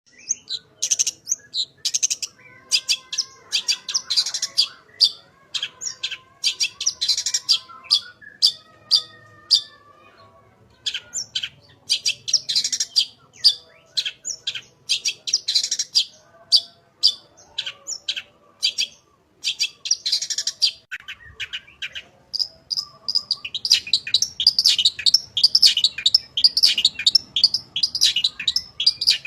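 Long-tailed shrike (cendet) singing a fast, varied chattering song of sharp high chirps and trills, packed with imitated phrases. There are lower whistled notes in the first third, and from a little past the middle-to-late part on the chatter runs as an unbroken stream.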